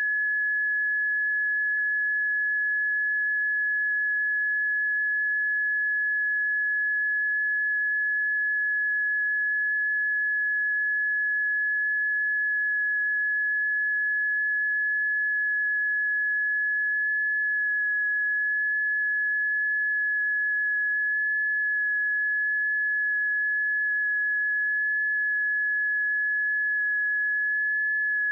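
Seismic early-warning monitor tone: a single high-pitched sine tone held at a steady pitch. This alert tone changes pitch when an earthquake or eruption is detected.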